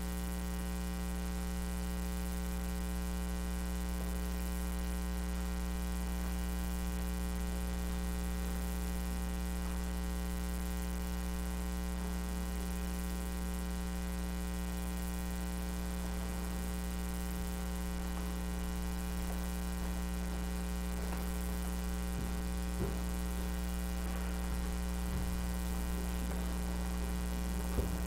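Steady electrical mains hum with a stack of overtones at an unchanging level. A few faint knocks come in the later part.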